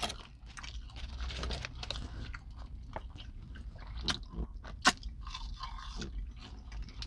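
Close-up mouth sounds of chewing a crispy fried fish sandwich and french fries: soft, irregular crunching and smacking, with two sharper crunches about four and five seconds in.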